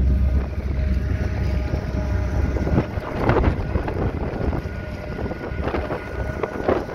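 Yamaha outboard motor running as the boat moves along, a steady hum under wind gusting on the microphone. A deep low rumble drops away about three seconds in.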